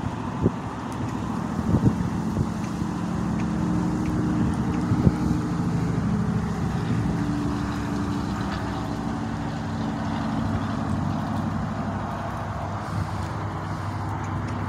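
A motor engine running steadily, its low pitch drifting slowly, with a few short sharp knocks in the first five seconds.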